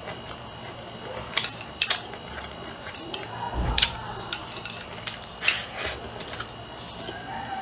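Chopsticks clicking and tapping against a bowl several times while food is picked up and eaten, with close-up eating sounds between the clicks.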